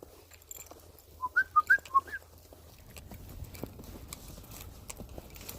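A quick run of about six short whistled chirps, a person whistling to call dogs, followed by faint rustling.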